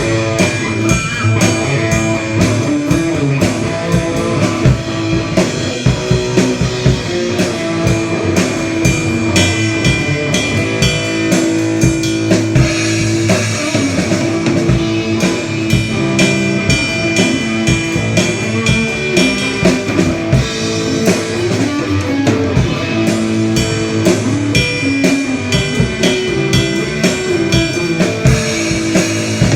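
Rock band playing an instrumental stretch at a sound check: guitar over a steadily beating drum kit.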